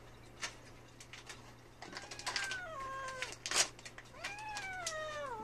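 Feral mother cat giving two long, drawn-out yowls, each sliding down in pitch, the second rising first and then levelling off near the end: a defensive warning call. A sharp tap falls between the two yowls.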